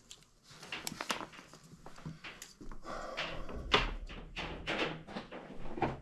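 Handling noise: scattered knocks, clicks and rustling as multimeter test leads are pulled off a thermostat wiring board and moved against foil-wrapped ductwork, with one sharper knock a little past the middle.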